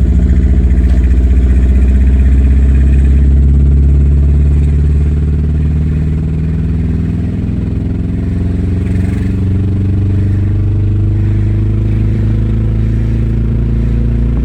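Subaru Legacy boxer engine with no muffler, pulling hard under acceleration; the raw exhaust drone climbs in pitch, eases off around five to seven seconds in, then climbs again.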